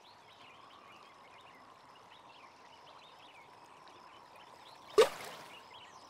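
Faint birds chirping over a quiet background, then about five seconds in a single sharp splash of an object hitting water.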